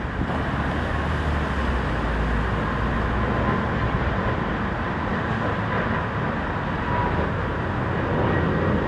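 Steady jet engine noise from aircraft on the airfield, with a deeper rumble through the first five seconds or so and a faint steady whine.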